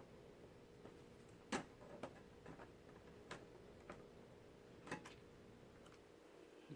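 Light clicks and taps of plastic laptop parts being handled, about half a dozen scattered over a few seconds, over a faint steady hum.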